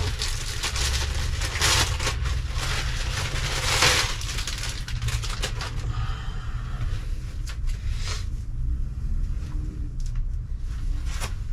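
Crinkling and rustling of clothing packaging and fabric as a black tank top is handled and taken out of a multipack. The rustling is loudest in the first four seconds, with a steady low rumble underneath.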